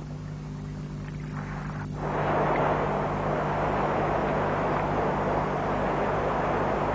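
Steady low machine hum. About two seconds in, a loud, even rush joins it: sand-and-water slurry gushing from a hydraulic dredge's discharge pipe.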